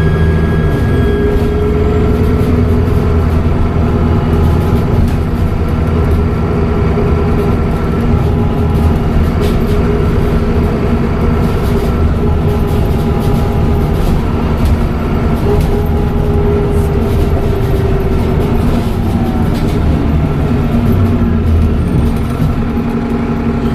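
Dennis Trident double-decker bus engine running under way, with whining tones from the turbocharger's whistle that rise and fall as the engine works. It eases off near the end.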